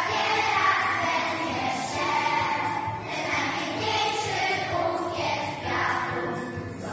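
A group of primary-school children singing a song together as a choir.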